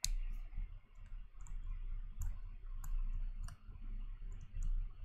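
Stylus tip tapping and scratching on a tablet screen during handwriting: a string of irregular short clicks over a steady low hum.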